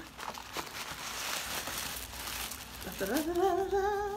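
Tissue paper and a paper shopping bag crinkling and rustling as the tissue is pulled out of the bag. About three seconds in, a woman hums a drawn-out, wavering note.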